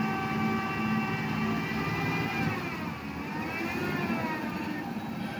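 Heavy tipper truck's diesel engine running, with a whining note over a low rumble. The whine holds steady pitch, then drops and climbs again as the engine speed changes, about halfway through.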